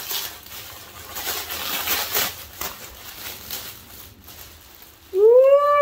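Thin black plastic wrapping rustling and crinkling as a wig is pulled out of it. About five seconds in, a loud drawn-out vocal "ooh" that slides up and then back down.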